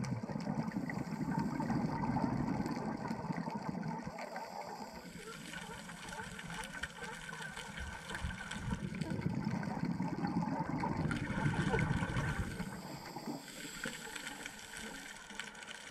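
Scuba diver's exhaled bubbles gurgling out of the regulator underwater, in two long bouts, the second starting about halfway through.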